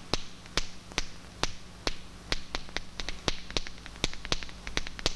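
Sharp, dry clicks in an uneven rhythm, about two a second and quickening near the end, over a faint low hum.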